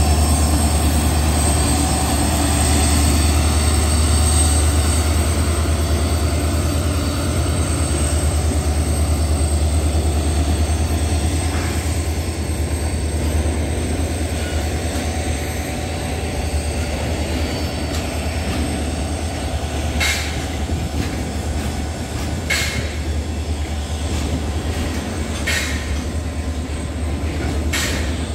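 Diesel freight locomotive passing slowly, its engine running with a deep steady hum that eases as it goes by, followed by oil tank wagons rolling past. Near the end the wagon wheels knock sharply over the rail joints, about every two to three seconds.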